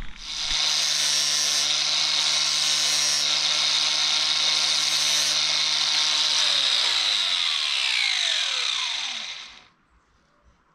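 Cordless angle grinder with a flap disc running at full speed and grinding the end of a steel bolt. After about six and a half seconds the trigger is released and the disc winds down with a falling whine, stopping about a second before the end.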